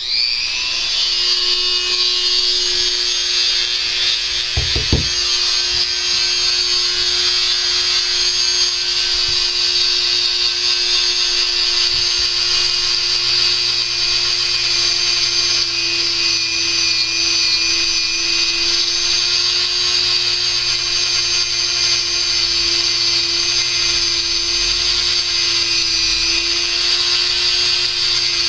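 Dremel rotary tool fitted with a sanding drum spinning up and running steadily at a high-pitched whine while grinding down a resin casting's pour stub. There is a brief knock about five seconds in.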